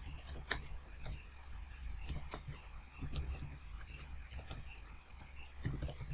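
Computer keyboard being typed on: irregular key clicks, a few a second, as a short terminal command is entered.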